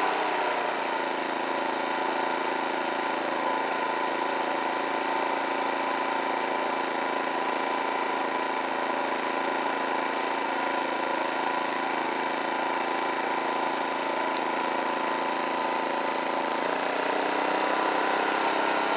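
Predator 2500-watt inverter generator's engine running steadily; its pitch drops in the first second as the eco throttle settles it to a lower speed, holds, then rises a little near the end.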